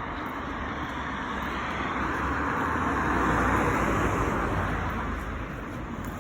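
A car passing on the road: its road noise swells to a peak about three and a half seconds in, then fades away.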